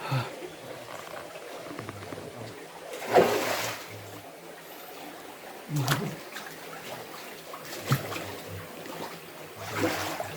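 Steady sound of flowing water from a stream or waterfall. A few sudden louder knocks and rustles come over it, the loudest about three seconds in.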